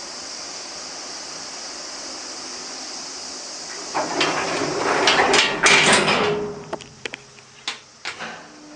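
Old Toshiba New Celebrum elevator: a steady hiss, then about four seconds in a loud rattling scrape lasting about two seconds, followed by several sharp clunks.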